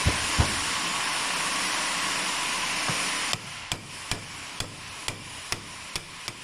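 A steady hiss with a few dull knocks, then, after about three seconds, the hiss stops and a hammer taps the collapsible steering shaft about twice a second, driving it back to its marked position after its plastic retaining pins broke.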